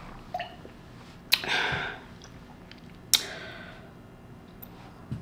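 Two sharp knocks about two seconds apart, each followed by a short scraping rustle, as a heavy cardboard furniture box is walked up a staircase. A few light clicks are heard between them.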